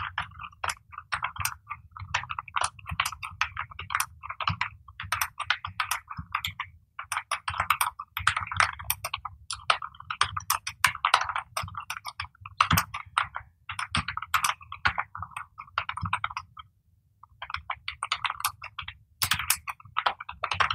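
Fast touch typing on a computer keyboard at about 64 words per minute: a rapid, uneven clatter of keystrokes in bursts, word by word, with a pause of about a second some sixteen seconds in.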